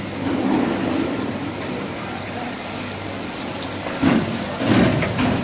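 Steady hissing factory noise from an EVA shoe-sole hot and cold moulding machine line running, with a faint high whistle over it and a few louder clatters about four seconds in.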